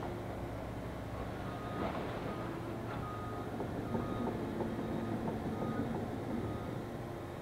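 Tracked demolition excavator with a sorting grapple running, diesel engine and hydraulics working steadily, with a couple of knocks about two and three seconds in and short high-pitched tones coming and going.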